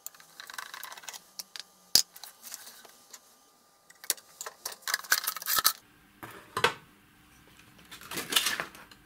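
Screwdriver taking the screws out of an avionics unit's metal case, followed by the metal cover being worked off the chassis. Small metal parts click and clatter, with several sharp clicks, the loudest about two seconds in, and a longer scraping clatter near the end.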